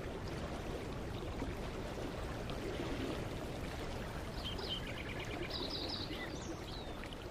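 A mountain creek running steadily. A bird sings a short run of high, quick notes from about four to six and a half seconds in.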